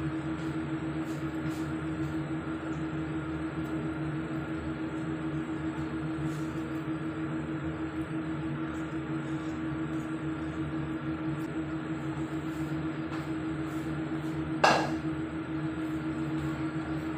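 Steady machine hum with fixed tones that do not change, and one sharp clink near the end.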